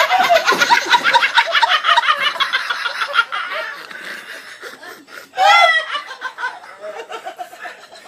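A person laughing hard: fast, high-pitched laughter for the first three seconds that then tails off, with a squealing whoop about five and a half seconds in and quieter laughter after it.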